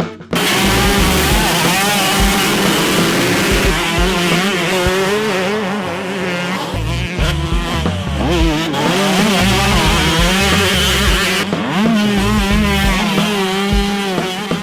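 Several two-stroke motocross bikes racing, their engines revving, the pitch rising and falling.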